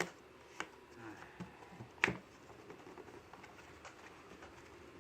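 A few sharp clicks and light taps from small parts being handled, the loudest about two seconds in.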